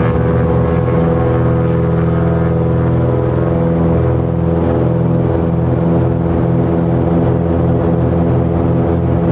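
Twin-engine Cessna's two piston engines and propellers at full takeoff power during the takeoff roll, heard inside the cabin as a loud, steady drone with a throbbing beat in the low end.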